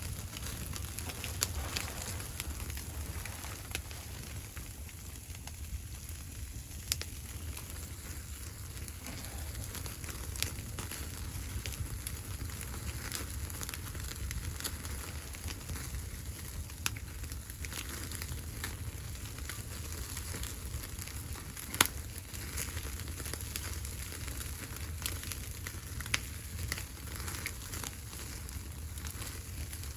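Wood fire burning with a steady crackle and scattered sharp pops, the loudest about two-thirds of the way through, over a steady low rumble.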